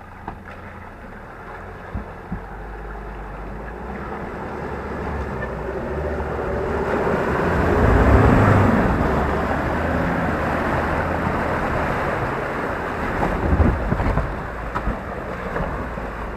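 A Ford Ranger Wildtrak 4WD pickup's engine working hard as the truck ploughs through a deep water-filled mud bog, its 33-inch mud tyres churning and splashing mud and water. The sound builds to its loudest about halfway as the truck passes close by, then eases off.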